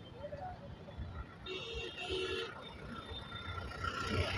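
Road traffic at a junction with engines rumbling low and steady. A vehicle horn sounds for about a second near the middle.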